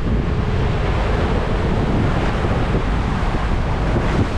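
Strong wind buffeting the microphone over the rush of breaking waves and spray along a sailboat's hull in a rough, squally sea, a steady, unbroken noise.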